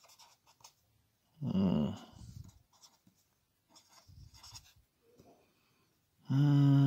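Felt-tip marker scratching on paper in short strokes. Two louder low, drawn-out moaning sounds break in: a short bending one about a second and a half in, and a steady held one near the end.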